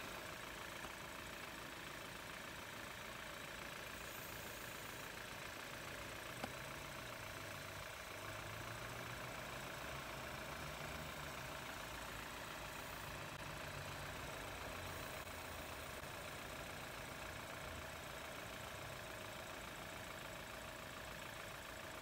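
BMW 3 Series engine idling steadily under the open hood, with the air conditioning running. A single faint click comes about six and a half seconds in.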